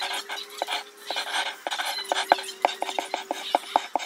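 Coloured pencil scratching back and forth on paper in short quick strokes, coming faster in the second half, over a faint steady hum.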